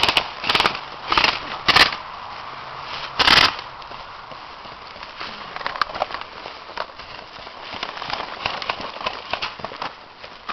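Airsoft guns firing in short bursts: four about half a second apart in the first two seconds, then a longer one about three seconds in. After that only scattered faint clicks over a steady outdoor background.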